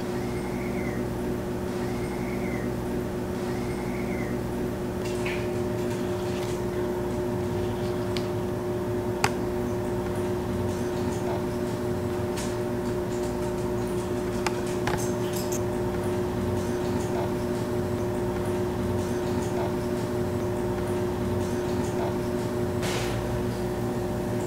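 Steady low hum of room tone with a few sharp clicks scattered through it, the loudest about nine seconds in.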